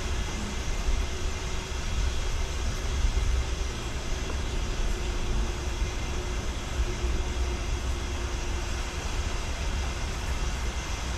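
Water running steadily from a fully open line into the nearly full 200-gallon water tank of a pressure washer trailer, a continuous rushing fill with a low rumble underneath.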